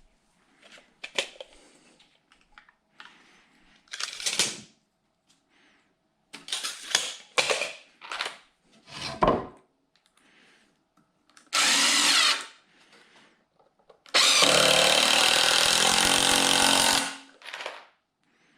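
Knocks and scrapes of handling, then a power drill running briefly and again for about three seconds at a steady pitch.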